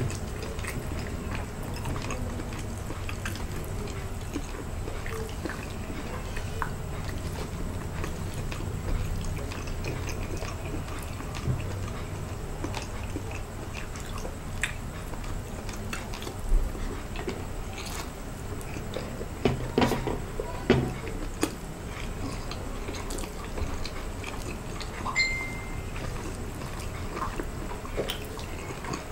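Close-miked wet eating sounds: balut (boiled fertilised duck egg) and rice eaten by hand, with chewing, squishing and sticky clicks of saucy fingers and lips. The loudest smacks come in a cluster about two-thirds of the way through.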